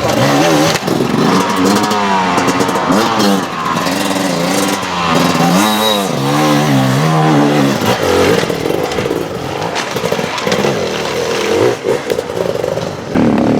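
Enduro motorcycle engine revving up and down in quick, repeated blips of the throttle, settling into a steadier engine note about halfway through with scattered clattering.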